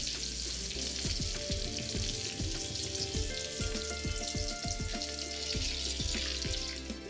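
Pieces of katla fish sizzling steadily as they fry in hot mustard oil in a kadai.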